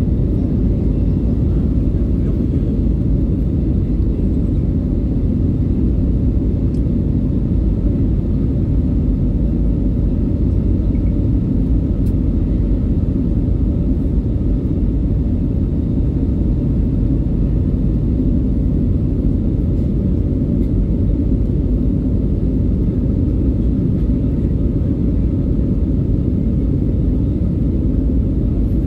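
Steady low drone of jet engines and rushing air inside the cabin of an Airbus A320neo during its climb after takeoff, heard from a window seat by the wing.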